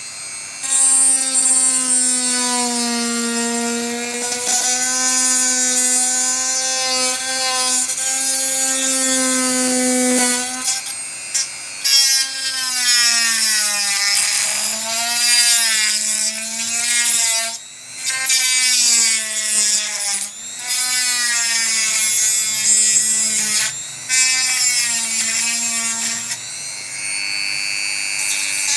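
Small handheld electric rotary tool whining as it cuts away plastic around a gear. The whine holds steady at first, then wavers and dips over and over as the bit loads up. The tool briefly cuts out twice past the halfway mark.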